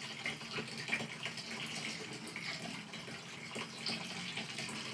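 Diesel fuel trickling and splashing in a steady stream out of the tilted in-tank fuel pump assembly of a VW Passat TDI, draining from the pump's reservoir back into the fuel tank.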